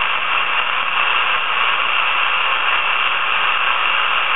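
Steady radio static hiss from an RTL2832 USB TV-dongle receiver running SDR#, tuned to the aircraft band in a gap between transmissions.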